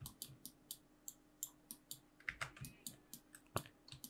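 Faint, irregular clicking of a computer keyboard and mouse, about four clicks a second.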